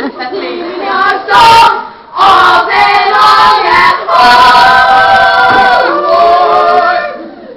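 A group of girls singing together in long held notes, with a short loud outburst about one and a half seconds in.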